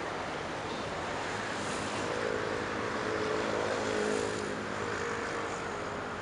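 Engine hum that swells and fades between about two and five seconds in, over a steady rush of wind and water.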